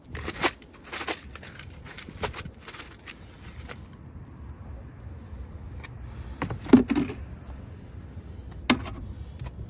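A plastic bowl of damp ferrous sulphate crystals being tilted and handled, with a run of light clicks and rustles in the first few seconds. Then a few sharper knocks as plastic lids and containers are picked up and set down, about seven and nine seconds in.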